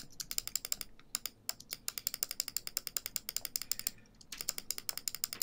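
Computer mouse scroll wheel ratcheting in quick runs of small plastic clicks, about ten a second, with short pauses about a second in and around four seconds.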